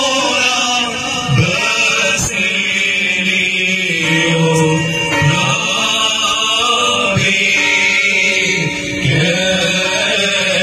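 Men's voices chanting a slow liturgical hymn in unison, holding long notes and moving from note to note every second or so.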